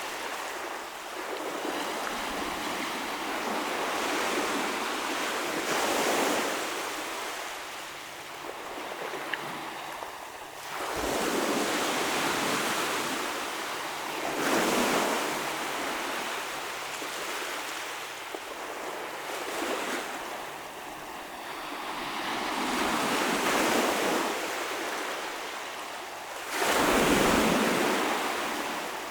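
Waves breaking and washing up on a shoreline, each surge swelling and falling away about every four to five seconds, the loudest one near the end.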